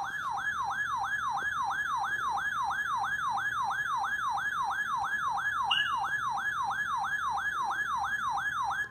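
Electronic siren-style alert tone, a quick downward sweep repeated about three times a second without a break, sounding as the attention signal for a severe thunderstorm warning.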